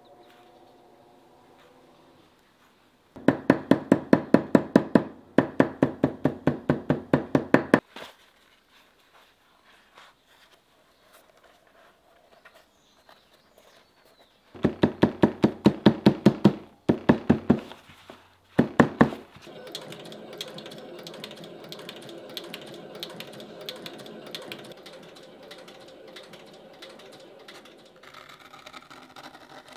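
Runs of rapid sharp taps, about six a second, each run lasting a few seconds with a slight ring, then a fainter steady sound in the second half.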